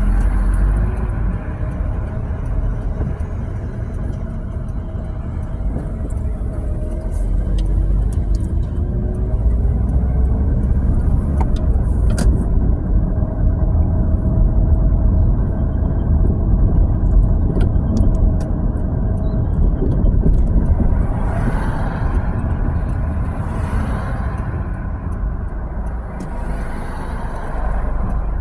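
Steady road rumble and engine hum heard from inside a moving car, the engine tone rising as it gathers speed. Three hissing swells come near the end.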